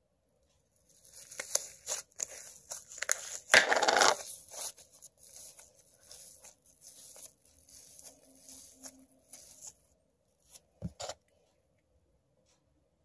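Homemade slime being stretched and squished by hand, crackling and popping with many small clicks. The crackling comes in a louder burst about three and a half seconds in, dies down to quieter crackles that stop about ten seconds in, and two short clicks follow near the end.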